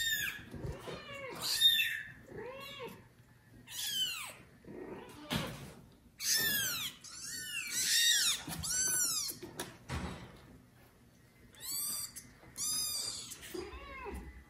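Several newborn kittens meowing loudly, a run of high-pitched calls that often overlap, with short pauses between bouts: the kittens are crying for their mother.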